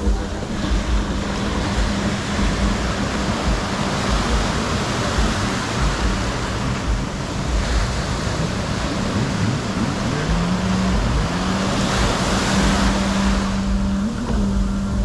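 Surf breaking and washing through the shallows, with wind buffeting the microphone. Under it a steady low engine hum, from a jet ski idling in the water, dips and climbs back in pitch about ten seconds in.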